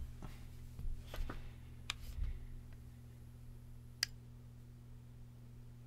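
Light taps and clicks of a metal tool and fingers handling a box mod's coil deck, then one sharp click about four seconds in, over a steady low hum.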